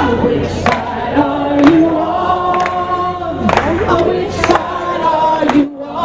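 Music: a group of voices singing together in long held notes, with a few sharp percussive hits.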